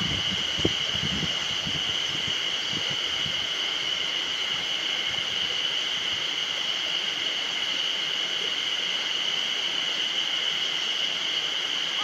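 A chorus of spring cicadas singing in one steady, unbroken high buzz, with a few low knocks in the first second or so.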